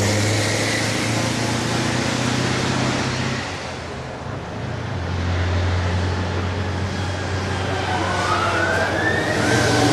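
A Liaz Dakar race truck's diesel engine pulls away up the hill and fades, then a second heavy engine draws nearer. Near the end a siren wails up in pitch from an approaching car with blue flashing lights.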